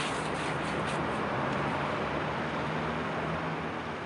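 Steady rumble of distant road traffic with a faint low hum.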